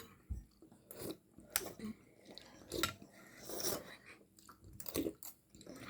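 People chewing and biting on pieces of goat leg and mutton from the soup: a scattering of short, soft clicks and mouth noises with quiet gaps between them.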